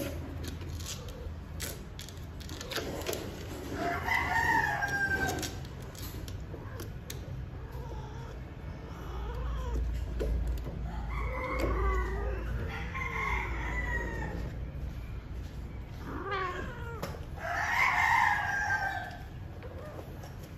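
A rooster crowing three times, each crow a long call that falls in pitch at the end, the loudest about four seconds in and near the end.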